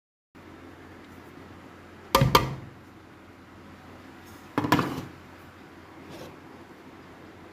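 Kitchenware clattering twice, about two seconds in and again near five seconds, each a quick cluster of clinks and knocks, with a fainter knock after six seconds over steady room tone.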